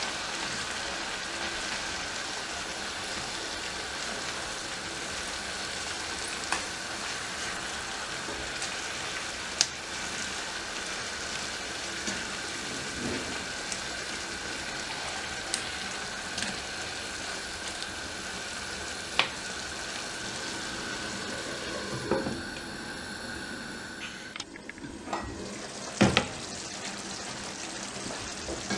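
Chicken, tomatoes, onion and peppers sizzling in a nonstick frying pan while a silicone spatula stirs them, with a few sharp taps of the spatula on the pan. Near the end the sizzle cuts off, leaving the sauce simmering more quietly with a few knocks.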